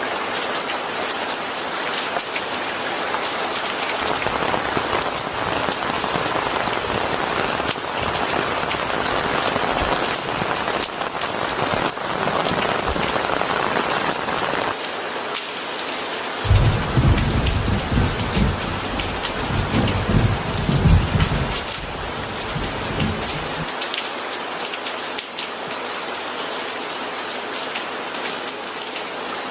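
Steady rain falling, an even hiss. About halfway through, a low rumble of thunder comes in and lasts about seven seconds before fading out.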